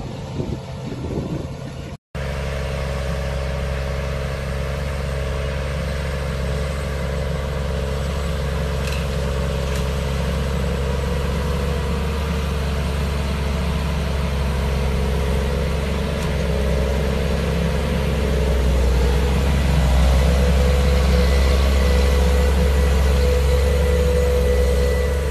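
Large farm tractor's diesel engine running steadily under load as it pulls a seed drill through the soil, with a brief dropout about two seconds in. The engine grows louder as the machine comes close near the end, and a steady whine joins in at about the same time.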